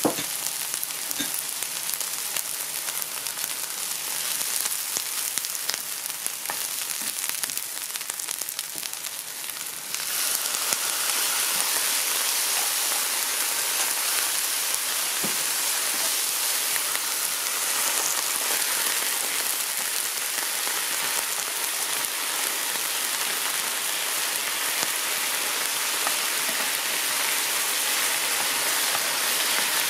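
Sliced leeks and garlic sizzling in oil in a nonstick frying pan while being stirred with a wooden spatula. About ten seconds in, the sizzle jumps louder and fuller and stays that way, as hot pepper flakes, soy sauce and water go into the hot pan.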